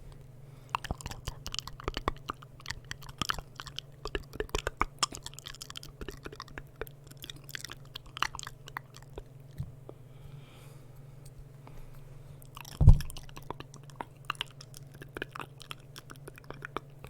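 Close-miked ASMR mouth sounds: wet tongue and lip clicks and smacks coming in quick irregular flurries, with one loud low thump about thirteen seconds in.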